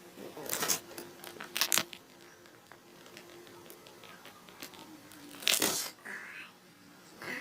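Handling noise from small plastic items and packaging: short rustling scrapes about half a second in, near two seconds in, and about five and a half seconds in, with faint clicks between.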